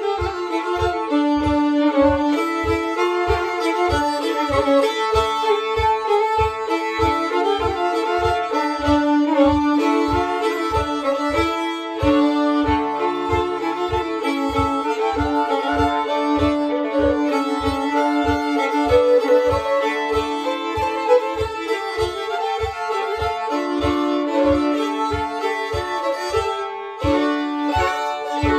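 Two fiddles playing a traditional Swedish polska together, a lively bowed dance tune with no pauses. Steady low thumps, about three every two seconds, keep the beat underneath.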